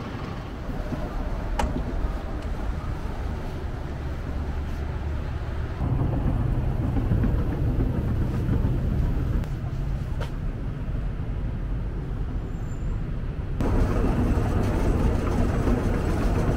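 Steady low rumble of city traffic with no words. The background changes level abruptly twice, about six and about fourteen seconds in.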